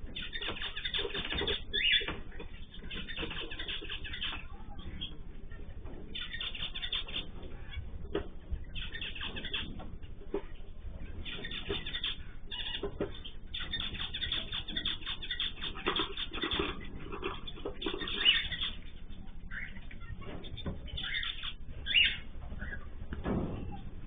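Mixed aviary cage birds, small finches and cockatiels, chirping and calling in irregular bursts throughout, with a few louder calls. Heard through a security camera's microphone that cuts off the high end, so the chirps sound dull, over a steady low hiss.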